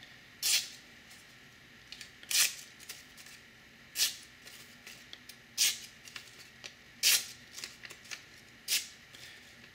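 A Spyderco Mule Team knife in Maxamet steel slicing through newsprint held in the fingers, six quick crisp paper cuts about a second and a half apart. It is a newsprint sharpness test of the edge after the stone and cardboard cuts.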